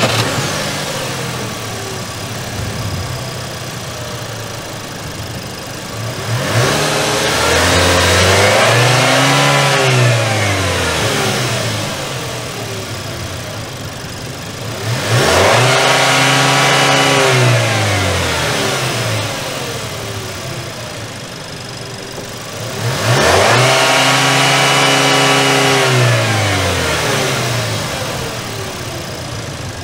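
2022 Haval F7x's 2.0-litre turbocharged four-cylinder petrol engine idling, then revved three times, about eight seconds apart. Each time the revs climb, hold high for a couple of seconds and fall back to idle.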